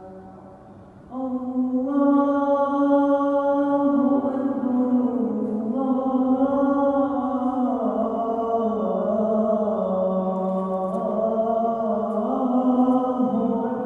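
A man's solo voice chanting the adhan, the Islamic call to prayer. After a short pause, one long unbroken phrase begins about a second in, its held notes bending slowly up and down in pitch.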